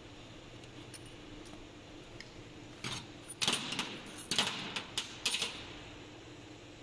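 Metal parts clinking and clanking as they are handled: a quick cluster of about seven sharp clinks between about three and five and a half seconds in, over a faint steady hum.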